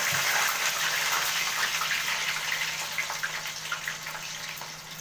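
Loud sizzling and crackling of wet, cut potatoes going into hot frying oil. It starts suddenly and eases off slowly.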